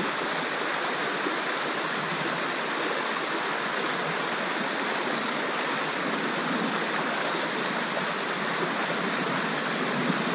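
Steady rush of shallow river water running fast over a rocky riffle.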